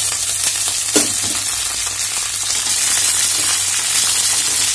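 Freshly cut okra sizzling loudly in hot oil in a kadai as it starts to fry, stirred with a wooden spatula. There is a single sharp knock about a second in.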